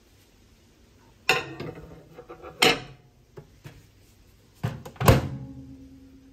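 A ceramic plate clattering onto a microwave oven's glass turntable, then the door clunking shut about five seconds in, the loudest knock. Right after, the microwave starts running with a low steady hum.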